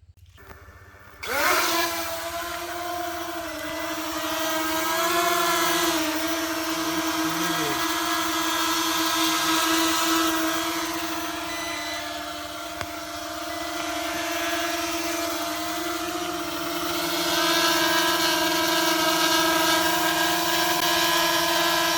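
Brushless motors and propellers of a ZD6 Pro quadcopter drone spinning up about a second in with a quick rising whine, then running as a steady multi-tone buzzing hum as the drone takes off, its pitch shifting slightly now and then.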